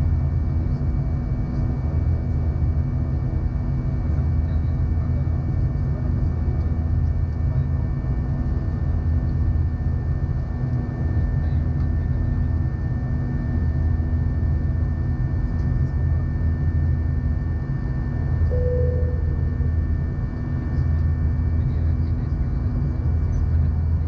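Steady cabin drone of an Airbus A319 with IAE V2500 engines: a deep rumble of engines and airflow with faint steady whines over it. A brief single tone sounds about three-quarters of the way through.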